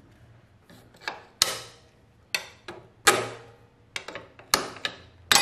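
Metal hand tool clicking and knocking against a motorcycle's rear shock linkage while a linkage bolt is worked free: about nine separate sharp metallic knocks at uneven spacing, each ringing briefly, the loudest near the end.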